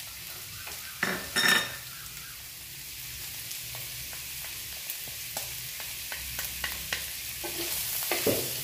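Catfish pieces and red curry paste sizzling in oil in a stainless-steel wok, with small spits and crackles throughout. A wooden spatula stirs and turns them, giving louder scrapes against the wok about a second in and again near the end.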